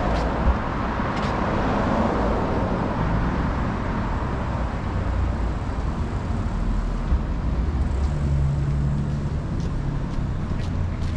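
Road traffic running along a city street: a steady rumble of cars, with one vehicle going by in the first couple of seconds and a low engine hum about eight seconds in.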